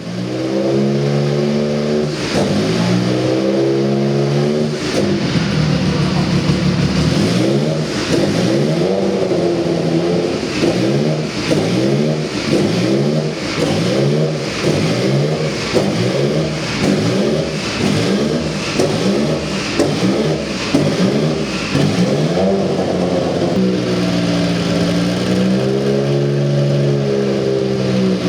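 Porsche 962 Group C race car's twin-turbocharged flat-six engine being revved over and over, its pitch climbing and dropping about once a second, with a steadier, lower running note at the start and again near the end.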